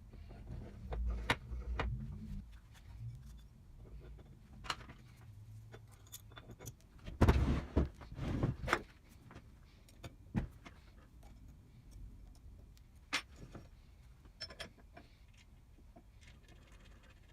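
Metal tools and machine parts clinking and knocking as the power hacksaw is put back together: scattered sharp clicks, with a louder clatter about seven to nine seconds in.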